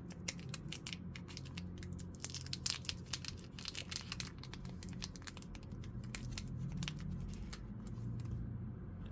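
Foil booster-pack wrapper being torn open and crinkled by hand, a run of crisp crackles that is thickest about two to four seconds in, over a low steady hum.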